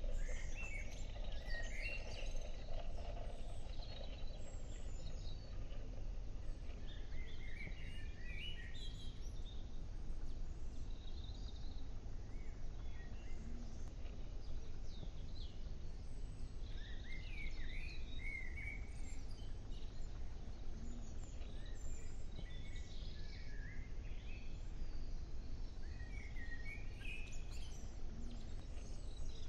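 Small birds chirping in short, scattered calls throughout, over a steady low outdoor background rumble.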